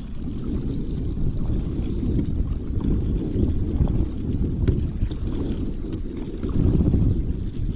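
Wind buffeting an action camera's microphone on a kayak: a low, uneven rumble that swells a little near the end.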